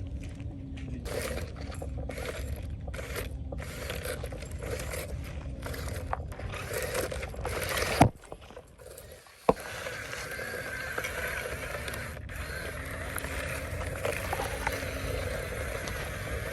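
Heavy construction machinery working: a steady low engine rumble with repeated scraping over it, and a sharp knock about eight seconds in.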